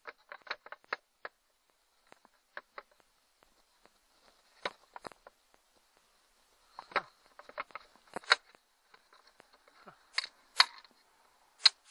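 Scattered sharp clicks and metal taps from a screwdriver working on an outboard motor's housing, with a few louder knocks in the second half.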